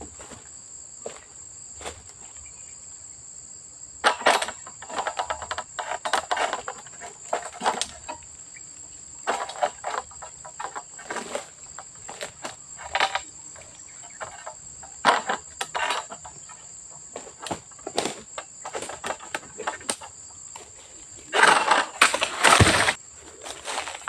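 High, steady drone of insects, with repeated irregular bursts of rustling and scraping as a long-handled pole sickle works at the fronds of an oil palm crown. Near the end comes the loudest stretch: a rustling crash with a heavy thud.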